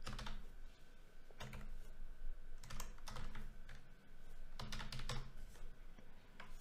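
Typing on a computer keyboard: four short bursts of keystrokes with pauses between them.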